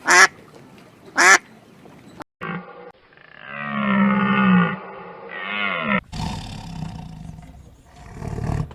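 Animal calls: two short, sharp calls in the first second and a half, then a longer drawn-out call about three and a half seconds in, and a shorter one near six seconds, followed by a lower, noisier stretch.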